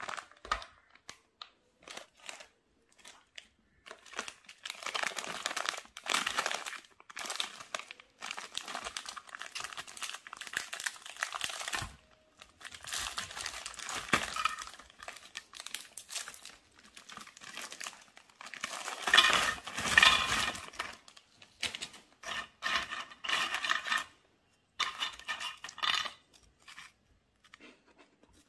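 Plastic biscuit wrappers crinkling and tearing as packets are ripped open and unwrapped by hand, in bursts of a second or more with short pauses between them, loudest about two-thirds of the way through. Near the end there are only small scattered clicks as a biscuit is broken apart.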